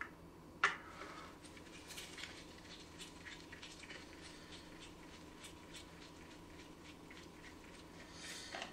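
Faint clicks and scraping of a Torx screwdriver working a screw on an engine cam cover, with one sharper click a little under a second in.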